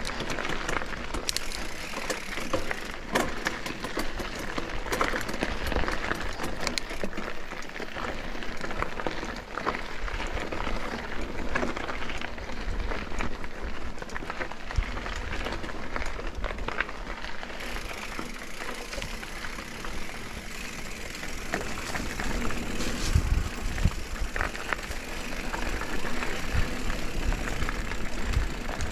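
Mountain bike riding a dirt and gravel trail: steady tyre crunch with many small rattles and clicks from the bike, and wind rumbling on the microphone.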